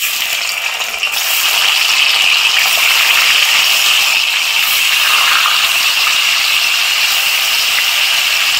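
Paneer cubes frying in hot oil in a kadai: a loud, steady sizzle and crackle that starts suddenly as the first cube goes into the oil.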